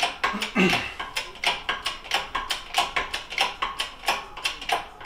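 Hydraulic shop press being pumped by hand: the bottle jack's pump handle and linkage clicking and clattering, about four sharp metallic clicks a second. The press is a little loose, so it takes a lot of pumping.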